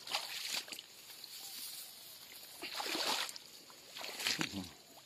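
Splashing and rustling in shallow marsh water and reed stems as a hooked snakehead is pulled out by hand, in three short bursts.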